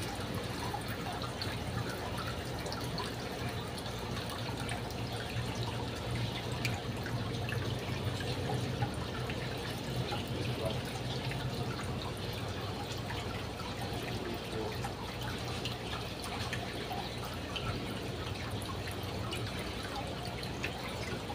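Steady trickling and dripping of water in aquarium tanks, with a low steady hum underneath.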